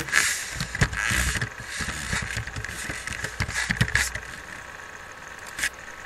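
Irregular keystrokes on a computer keyboard for about four seconds, then a single mouse click near the end.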